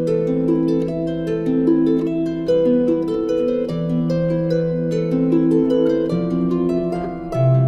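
Background music: a gentle harp-like plucked melody over held low notes.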